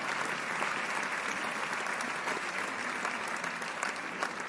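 Crowd applause: many hands clapping together in a dense, even patter that slowly fades near the end.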